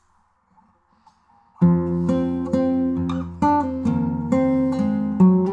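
Acoustic guitar starting the intro of a song about a second and a half in, playing picked chords with ringing notes and new strokes every couple of seconds.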